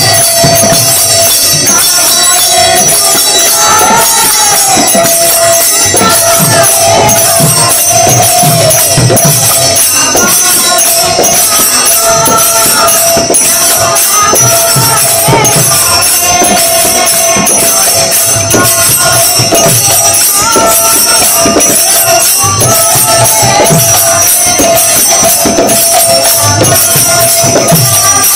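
Devotional kirtan music: small brass hand cymbals played in a quick, continuous jingling rhythm, with hand-drum strokes, a steady held tone underneath, and a woman singing the melody.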